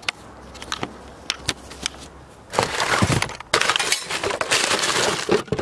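Rubbish in a car footwell being rummaged through: paper fast-food bags and a plastic bottle rustling and crinkling. A few separate clicks and knocks come first, then dense crinkling from about two and a half seconds in.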